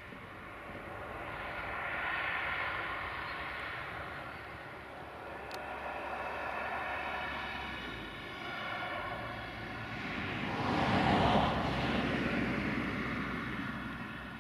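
A distant engine droning with a steady pitch, swelling and fading several times, with a louder rise and fall of noise about ten seconds in, as of something passing.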